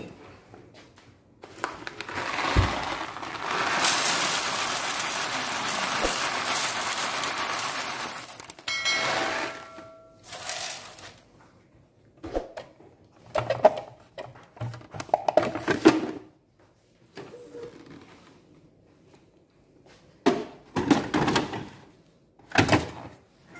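Coffee beans poured into an espresso machine's removable plastic bean container, a steady rattle lasting about six seconds. After a brief tone, a series of short plastic knocks and clunks follow as the container is handled and fitted back into the machine.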